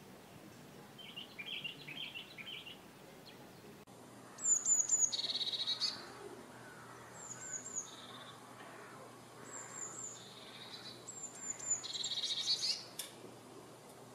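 Eurasian blue tit singing: four phrases, starting about four seconds in, each made of three quick high descending notes followed by a lower trill. Before that, about a second in, a brief soft chattering from another bird.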